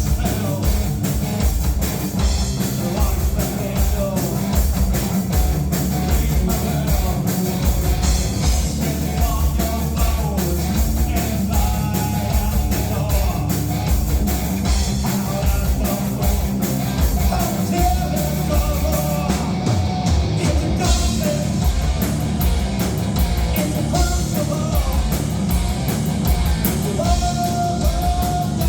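A live rock band playing loud, with a drum kit keeping a steady beat and a voice singing over the band.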